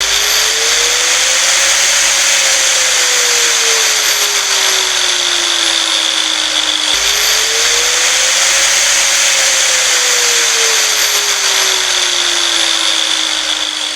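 Electric grinder motor running loud with a high whine, its tone rising and then slowly falling, twice over, then fading out near the end.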